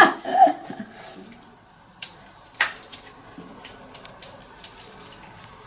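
Teaspoons scooping and pressing moist sausage-meat stuffing into hollowed tomatoes and a round courgette: soft wet squishing with a few light clicks and taps, one sharper click about two and a half seconds in.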